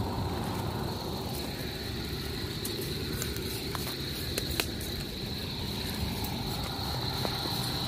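Night-time outdoor ambience: a steady high chirring insect chorus over a low rumble, with a few sharp clicks about halfway through.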